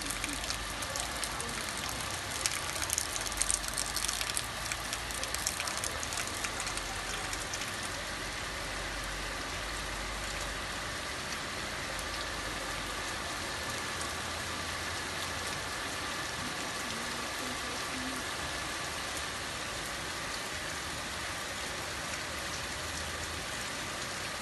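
Steady hissing rush of floodwater flowing along a flooded street, with a few louder crackles about three to five seconds in.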